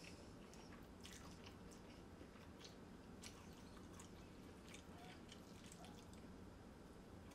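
Faint chewing of a mouthful of noodles and vegetables, with soft wet mouth clicks scattered throughout.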